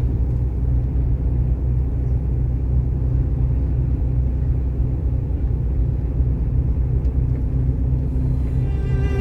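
Steady low rumble of a moving bus: engine and road noise. Background music with string instruments fades back in near the end.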